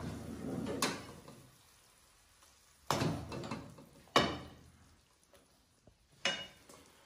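A wooden spoon scooping beans and peppers out of a non-stick frying pan and onto food in a ceramic bowl: a few sharp knocks of spoon on pan and bowl, each with a short scraping tail.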